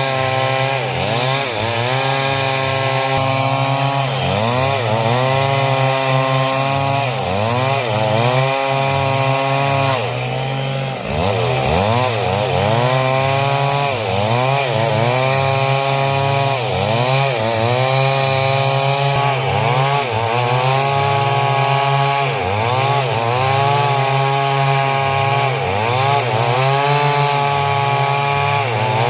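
Chainsaw engine running hard while sawing coconut wood, its pitch dipping and recovering about once a second as the chain bites into the hard wood and frees up. There is a short lull about ten seconds in.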